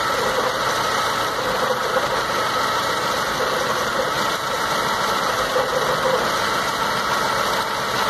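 A 2006 Dodge Stratus 2.0-litre four-cylinder engine idling roughly with a misfire. With one spark plug wire pulled off it stumbles more, which shows that the cylinder is firing and is not the dead one.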